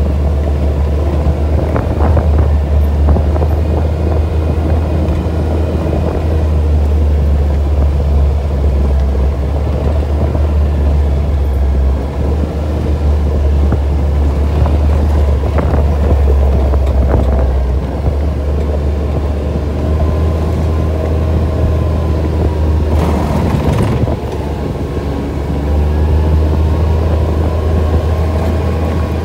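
ATV engine running steadily under way on a dirt trail: a loud, constant low rumble with its engine pitch drifting slowly up and down. A brief rush of noise, such as a wind gust or a jolt, comes about three-quarters of the way through.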